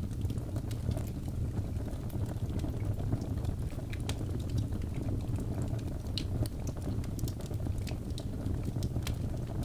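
Wood fire burning in a fireplace: a steady low rumble of flames with irregular sharp crackles and pops from the logs, a few louder pops scattered through.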